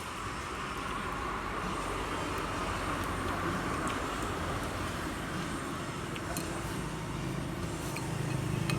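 Steady noise of passing motor traffic, slowly growing louder.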